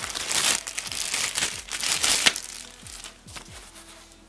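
Clear plastic packaging bag crinkling as hands handle it, in a run of loud rustles through the first two seconds that die down toward the end.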